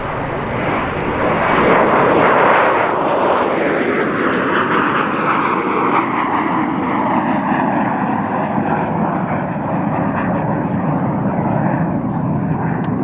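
A pair of Kawasaki T-4 jet trainers taking off in formation, their twin IHI F3 turbofan engines running at takeoff power. The noise is loudest about two seconds in as they pass, then the engine whine falls in pitch as they climb away.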